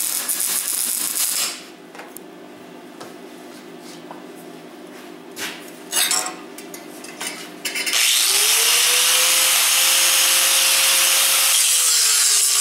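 Welding crackle on a rusted steel compressor tank for about a second and a half, then tools clattering as they are set down and picked up. About eight seconds in, an angle grinder spins up and grinds the weld on the tank steadily for about five seconds, its whine dipping a little in pitch near the end.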